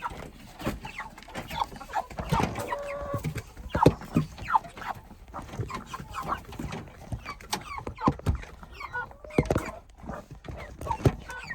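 Broiler chickens clucking and cheeping in short calls, with scattered knocks and clatter from the new feeder being set down among them.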